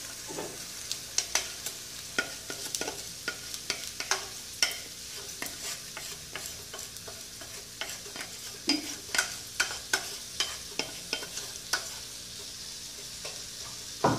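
Freshly washed, drained rice sizzling in hot olive oil in a nonstick frying pan as it starts to toast, a steady hiss with irregular sharp pops and crackles.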